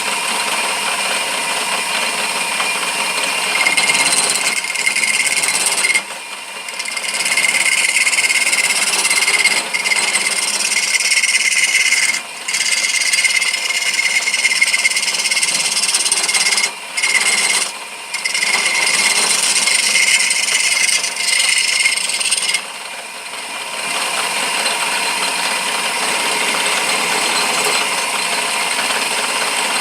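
Wood lathe running while a hardened homemade turning tool cuts a spinning walnut blank, a steady scraping hiss with a high ringing tone in it. The cutting sound drops out briefly four times as the tool comes off the wood.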